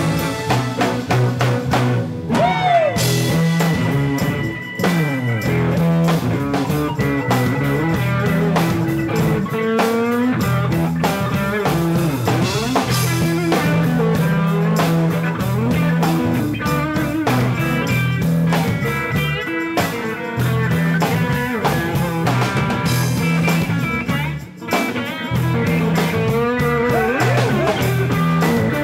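Live rock band playing without vocals: an electric guitar lead with bent and sliding notes over a steady bass line and drum kit.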